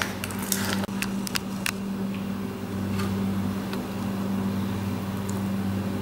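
A steady low machine hum throughout, with sharp clicks and taps of a spatula against the pan as thick wheat halwa is stirred, several in the first two seconds and a few more later.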